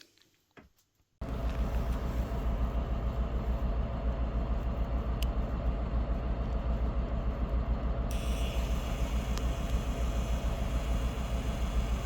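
A steady low rumble that cuts in abruptly about a second in and runs on unchanged.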